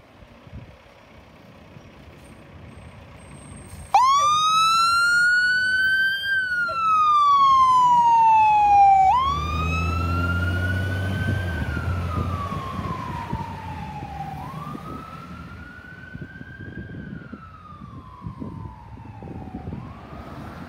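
Fire engine siren switching on about four seconds in and wailing in slow rising and falling cycles, with the truck's engine heard as it drives past. Both then grow fainter as the engine pulls away.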